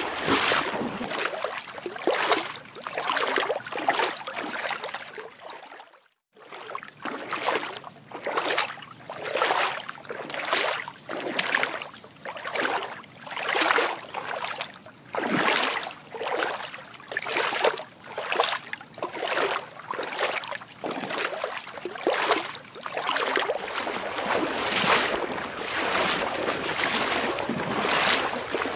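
Water sloshing in rhythmic surges, about one a second, with a short cut to silence about six seconds in.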